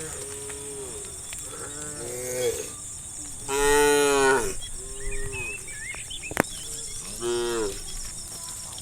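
Cows in a herd mooing, about five calls one after another, the loudest and longest about three and a half seconds in, lasting about a second. A single sharp click a little after six seconds.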